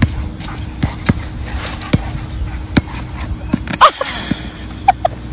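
Basketball bouncing on an outdoor court, about one bounce a second, then a louder thump near four seconds in as the dribbling stops and the player goes down. Short squeaks come with the thump and twice more near the end.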